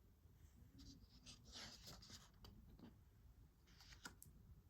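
Near silence: quiet room tone with a few faint soft rustles and clicks.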